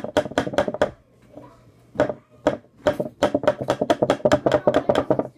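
Rapid, even tapping of a utensil against the rim of a blender jar, about six knocks a second, to knock sticky dip off it. The tapping stops about a second in and picks up again a second later.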